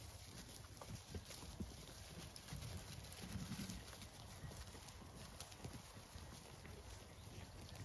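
Faint, scattered knocks and taps of Blackbelly lambs' hooves on a fallen log as they climb and jump about on it.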